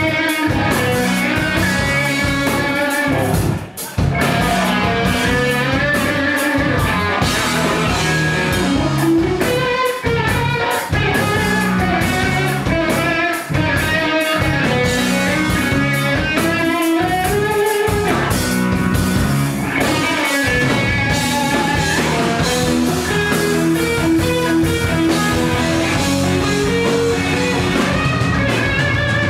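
Background music led by guitar, with a steady beat and a brief break about four seconds in.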